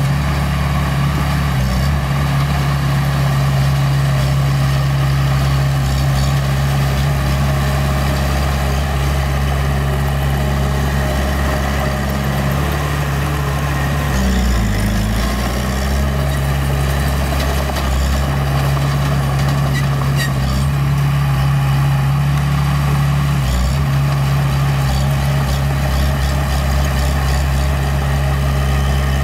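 Heavy-equipment diesel engine running steadily, its pitch dipping briefly about halfway through before settling again.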